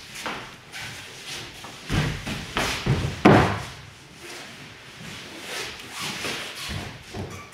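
Feet stamping and shuffling and a body landing on foam mats as an aikido partner is taken down into an ikkyo pin. A run of thuds starts about two seconds in, the loudest a little after three seconds, followed by softer knocks and shuffles as the pair get up.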